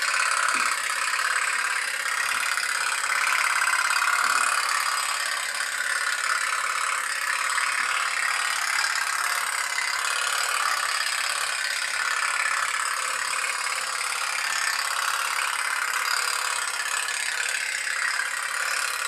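Pop-pop (putt-putt) steam boat running in a sink of water: its candle-heated boiler flashes water to steam and draws cold water back over and over, giving a fast, steady rattling putt-putt.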